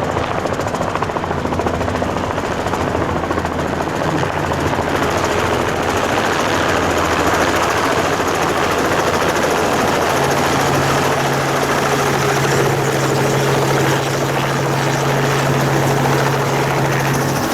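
Helicopter running with a steady, loud rotor and engine noise. A low, steady hum joins it about ten seconds in.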